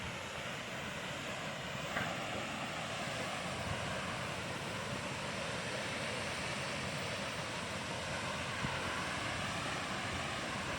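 Steady rushing of flowing water, an even hiss with no change in level.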